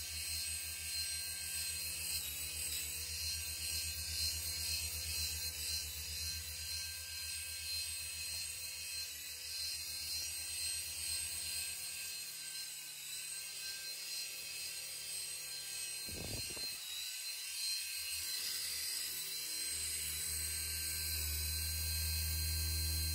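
Small electric motors and coaxial rotors of a toy-sized mini Ingenuity helicopter running in flight: a steady high-pitched whine over a low rotor buzz. The buzz eases off around the middle and picks up again near the end. A single brief knock comes about two-thirds of the way through.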